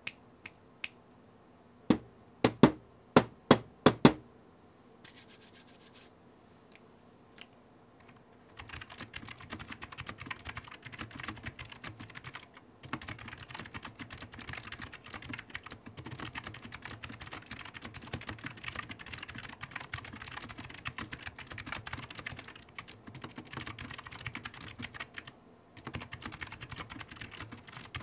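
Typing on a Zoya GMK67 mechanical keyboard with PBT keycaps, a quick, dense patter of keystrokes with a few short pauses. It is preceded about two seconds in by a quick run of about seven louder single clacks.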